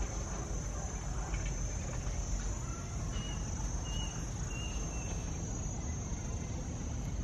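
Garden ambience: a steady high insect drone, like crickets, with a few short bird chirps about halfway through, over a low rumble.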